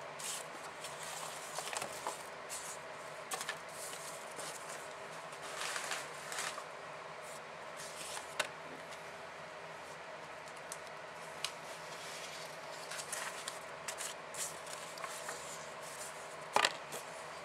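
Sheets of paper and foam core board being handled on a tabletop: soft rustling with scattered light taps and clicks, one sharper tap near the end, over a faint steady hum.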